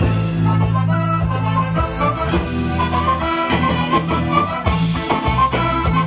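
Upbeat band music: a bright melody line over a steady bass and beat.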